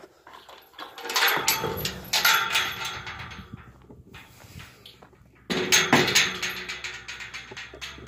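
Steel livestock gate being worked by hand, its latch and bars rattling and clanking in two bouts, the second starting about five and a half seconds in.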